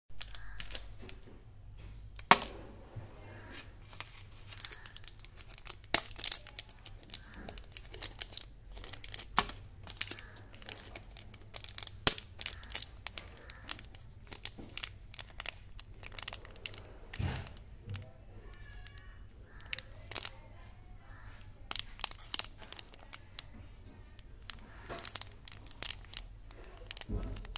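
Plastic candy wrapper crinkling and crackling as fingers handle it, with sharp crackles scattered throughout, the loudest a couple of seconds in.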